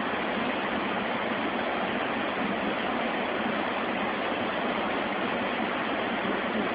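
A steady, even rushing hiss with no breaks or distinct events.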